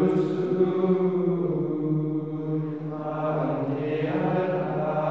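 Liturgical chant sung in long, held notes in a male voice range, the pitch staying level for seconds at a time.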